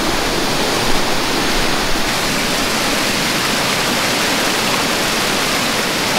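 Creek water rushing steadily over a small spill of rocks, with a couple of brief knocks about one and two seconds in.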